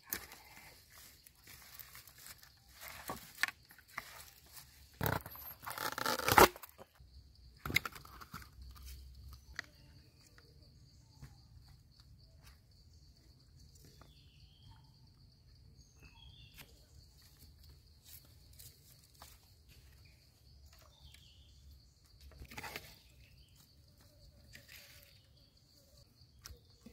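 Hands handling raw fish and fresh herbs (lemongrass stalks and leaves): rustling, crinkling and small clicks, busiest in the first few seconds with a brief squeaky rub about six seconds in. After that, only faint scattered taps over a thin steady high tone.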